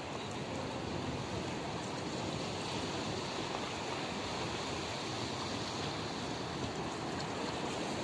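Steady rushing of the sea: small Mediterranean waves breaking on the shore and washing against the rocks.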